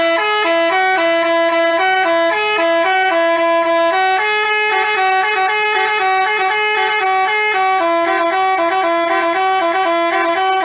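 Basuri telolet bus horn playing a fast tune of short, stepped notes.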